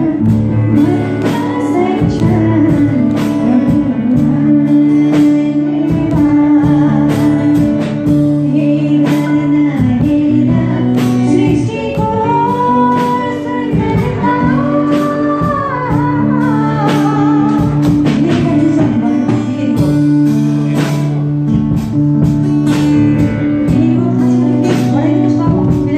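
A woman singing a Nepali Christian song into a microphone over accompanying music with sustained notes and a regular beat.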